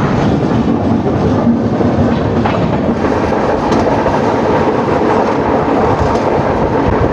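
Moving LHB passenger coaches of the Hussain Sagar Express heard from an open coach doorway: a steady loud rumble and clatter of wheels running on the rails.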